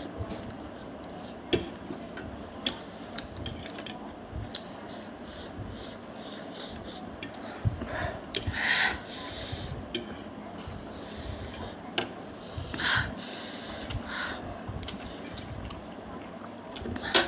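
Eating sounds at a table: scattered clicks of utensils against a bowl, the loudest near the end, with two short breathy slurps or sniffs about halfway through and again a few seconds later.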